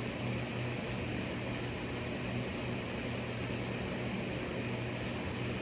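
Steady low hum and hiss of room background noise, like a fan or air conditioner running, with a few faint ticks near the end.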